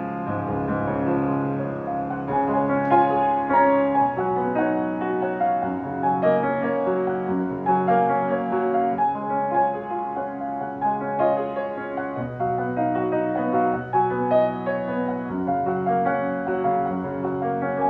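Background piano music, with notes and chords held and changing about every second.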